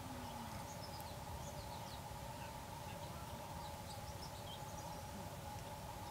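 Quiet rural outdoor ambience: faint, scattered bird chirps over a steady low hum.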